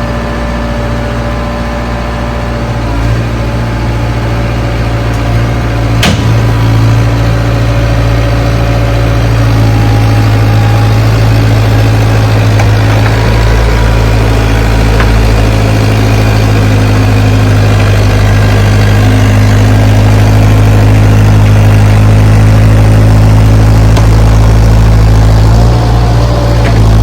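Bobcat compact excavator's diesel engine running steadily, a little louder from about six seconds in. A single sharp click at that point.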